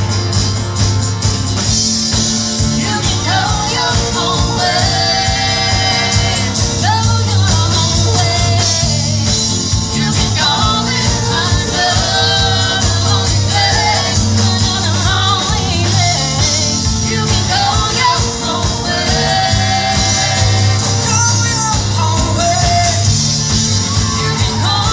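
Live rock band playing through a PA: a woman singing lead over electric guitars, bass, drums and keyboard, with a steady strong bass line under the sung melody.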